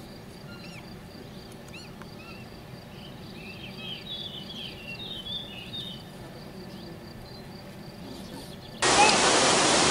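Faint outdoor background with scattered short high chirps of small birds. About nine seconds in, a loud, steady rushing noise cuts in abruptly.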